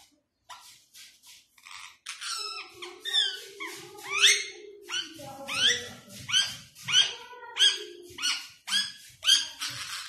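Indian ringneck parakeet calling: a few faint chirps, then from about two seconds in a regular run of loud rising squawks, about one and a half a second.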